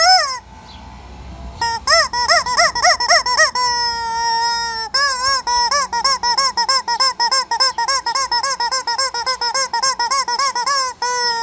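Rubber chicken toy squeaking over and over, each squeak swooping up and down in pitch. After a short lull near the start come quick squeaks, then one long held squeal around four seconds in, then a fast unbroken run of squeaks, about five a second.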